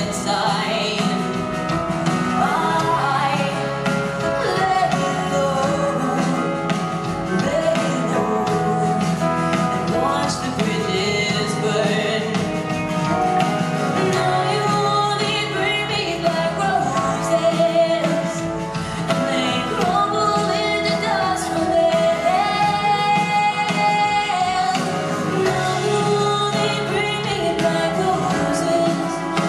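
A woman singing lead into a microphone with a live band of drums and guitars playing behind her.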